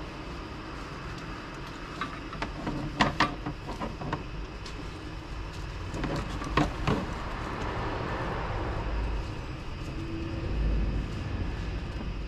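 Light clicks and taps of a plastic recoil-starter pull handle being handled as the starter rope is fitted through it, clustered about two to three seconds in and again near seven seconds, over a steady low background rumble.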